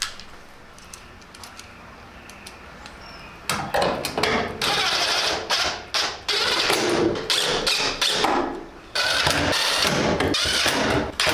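Cordless power driver driving screws in, in several loud bursts of about a second each, starting about three and a half seconds in.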